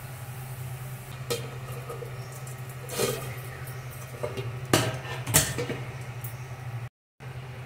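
Aluminium lid clanking against a steel karahi as it is set on and settled over the pan, several sharp metal clinks, the loudest near five seconds in, over a steady low hum.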